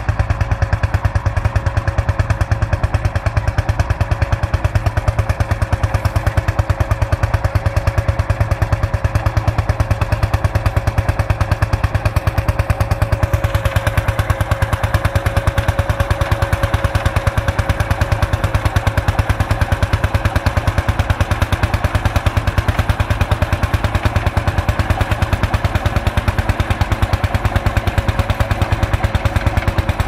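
Lanz Bulldog crawler's single-cylinder two-stroke hot-bulb engine running under load while pulling a plough, a steady, fast, even beat of exhaust pulses.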